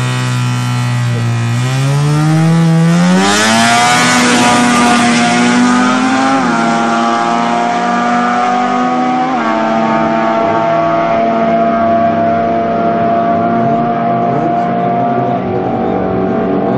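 Rotary-engined Mazda R100 drag car launching and accelerating down the strip. The engine note climbs, with gear changes a few seconds in, about six seconds in and about nine seconds in, then holds as the car runs away.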